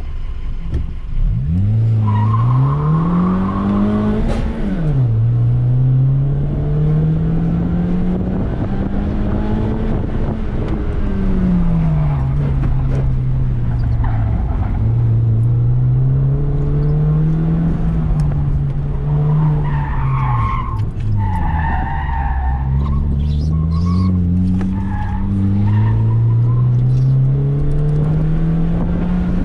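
Honda Fit's four-cylinder engine revving up and down through an autocross course, heard from inside the cabin. Its all-season tyres squeal in the corners, once about two seconds in and repeatedly from about twenty seconds in.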